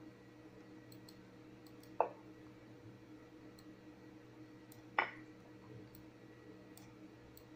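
Two short clicks about three seconds apart over a faint steady hum, as moves are stepped through on an online chess analysis board.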